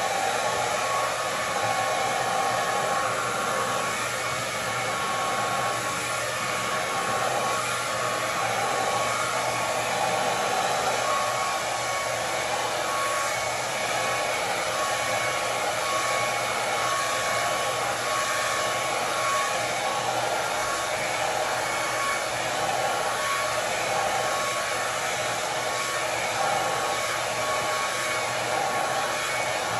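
Handheld hair dryer blowing steadily, a continuous rush of air with a thin, steady whine running through it.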